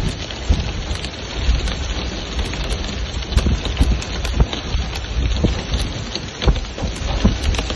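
Heavy rain mixed with hail falling on a paved road: a dense steady hiss broken by many sharp separate hits, with a low rumble underneath.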